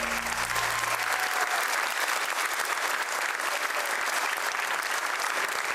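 Audience applauding, as the last held notes of the music fade out in the first second.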